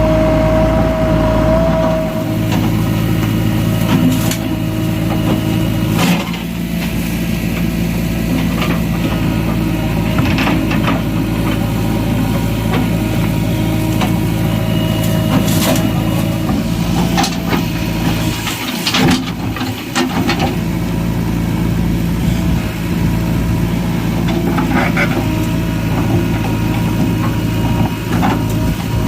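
JCB 3DX backhoe loader's diesel engine running steadily under working load, with knocks and clanks from the digging and loading scattered throughout.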